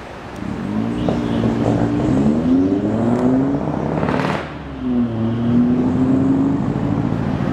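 Yamaha Majesty big scooter's engine running and being revved, its pitch rising over several blips. Its note drops briefly a little past halfway, under a short rushing hiss, then comes back up and holds steadier.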